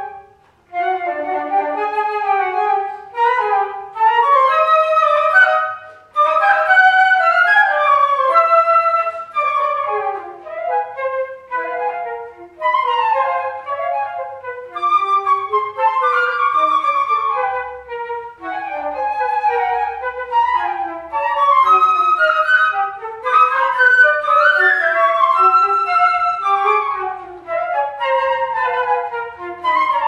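Two concert flutes playing a fast classical duet, their lines of quick notes weaving around each other, with a short break about a second in.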